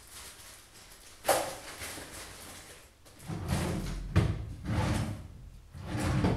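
A sharp knock about a second in, then a run of four rough, noisy knocks and rumbles in the second half, the sharpest near the middle of them.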